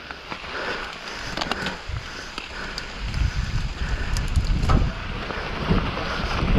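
Wind buffeting the microphone over the noise of a mountain bike rolling on a sandy trail. The low rumble gets heavier about three seconds in, with a few sharp clicks and rattles.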